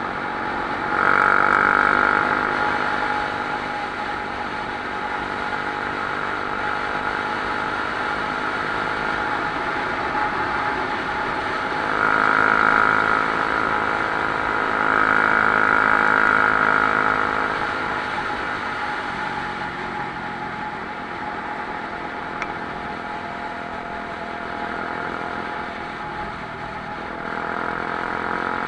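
Motorcycle engine running steadily while riding along a road. It swells louder with more throttle about a second in, again for several seconds about halfway through, and once more near the end.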